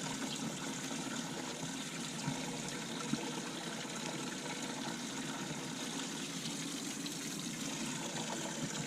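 Steady trickle of running water: a boat's live well pump filling the live well.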